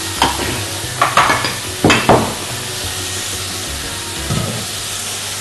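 Minced meat frying with onions in a pot, with a steady sizzle. A spoon knocks and scrapes against the pot a few times in the first two seconds.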